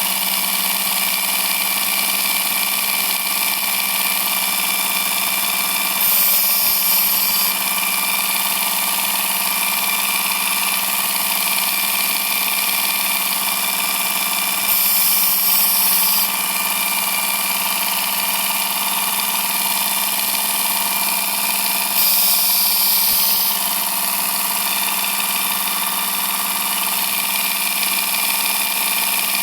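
Work Sharp Ken Onion Elite knife sharpener's belt grinder running steadily with an even motor whine. Three times, about eight seconds apart, a knife blade is drawn along the moving abrasive belt, each pass a brief rise of grinding hiss lasting about a second and a half.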